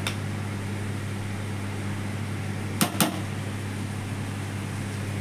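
A steady low hum, with two sharp clicks close together about three seconds in.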